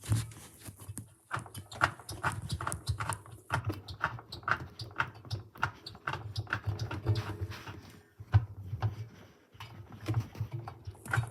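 Hoover One Touch appliance making a repeated squeaking, about two squeaks a second over a low pulsing rumble. The uploader suspects rubbing rubber. The noise eases off for a moment past the middle, then comes back.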